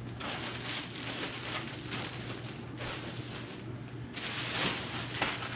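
Clear plastic bags crinkling and rustling as bagged socks and clothing are handled, louder in the last second and a half.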